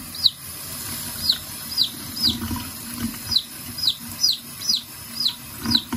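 A Red Sex Link chick peeping over and over, about ten short high peeps that each fall in pitch, while its vent is washed clean of pasty butt under a running tap. The tap runs steadily into the sink underneath.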